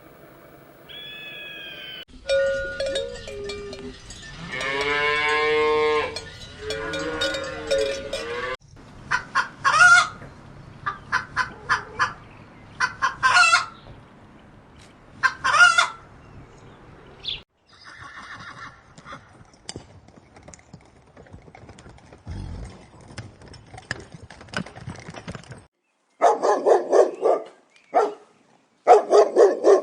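Farm animal calls in succession: a long drawn-out pitched call, then chickens clucking in short repeated calls, and a run of short barks near the end.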